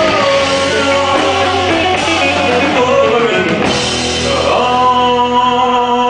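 Live rock band music with a male lead singer at the microphone; about two-thirds of the way in the voice slides up into a long held note over the band.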